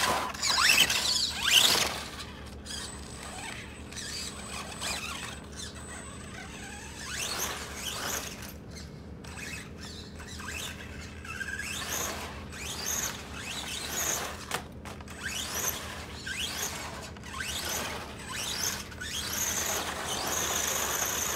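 Brushless RC motor (Team Orion dDrive 2700kV, motor and ESC in one unit) whining in repeated short rising sweeps as the throttle is worked, then holding a steady high whine near the end as the car drives along.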